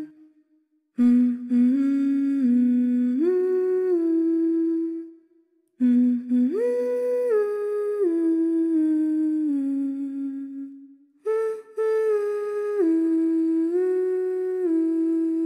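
A voice humming a slow melody in three phrases, each a few seconds long and made of held notes that step up and down in pitch, with short pauses between phrases.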